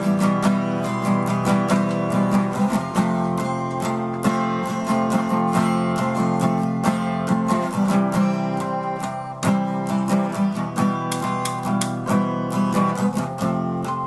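Two acoustic guitars, one of them a Fender, playing together in an instrumental passage, chords strummed and picked in many quick strokes.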